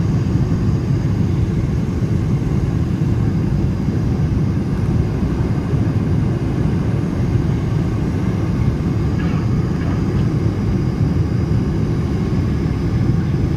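Steady low rumble of a United Boeing 747's engines and airflow heard inside the passenger cabin.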